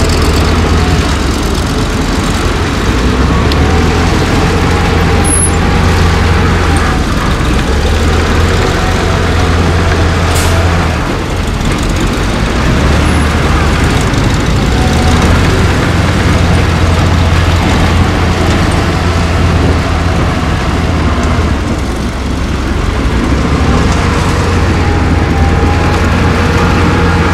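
Heavy diesel engine of earth-moving machinery running steadily at work, its note easing off briefly about eleven and again about twenty-two seconds in.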